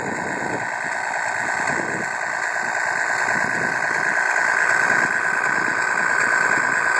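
Radio-controlled Scania truck model running under load with a child riding on its trailer: a steady mechanical whine from its drive that grows gradually louder.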